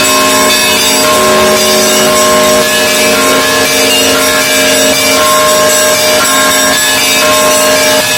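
Russian Orthodox monastery bells rung together in a loud, continuous peal, many bell tones ringing on and overlapping one another.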